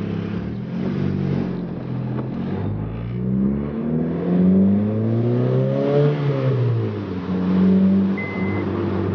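8th-gen Honda Civic coupe's four-cylinder engine pulling away, its note rising in pitch for a few seconds as it accelerates, then dropping back and running steady; it sounds kind of loud. Near the end a short beep repeats about once a second.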